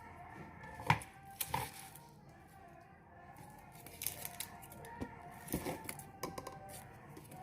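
Scattered sharp clicks and knocks from objects being handled, coming in a few short clusters, over faint background music.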